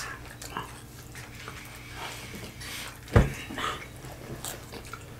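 Close-up eating sounds: scattered crackles of hard taco shells being bitten and handled, and chewing. One loud thump about three seconds in.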